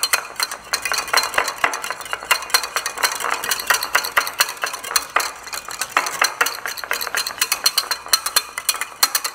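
Wire whisk beating a thick yogurt dressing in a glass bowl, its wires clicking rapidly and steadily against the glass.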